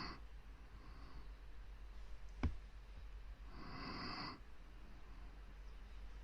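Close-miked ASMR breathing: a breath fading out just at the start, a soft brief one about a second in, and a longer breath of about a second a little past halfway. A single sharp click, the loudest sound, comes between them.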